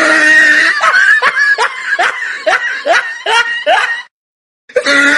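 Laughter: a loud run of short, repeated 'ha' bursts, each falling in pitch, about two or three a second. It cuts off abruptly about four seconds in and starts again near the end.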